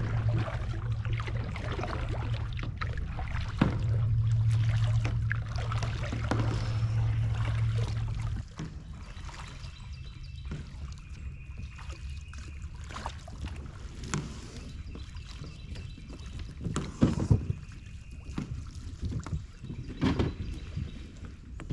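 Kayak paddles dipping and splashing through the water over a steady low rumble for the first eight seconds or so. Then it turns quieter: crackling rustles of dry leaves and a few sharp knocks, the loudest near the end, as a kayak is beached and dragged up a leaf-covered bank.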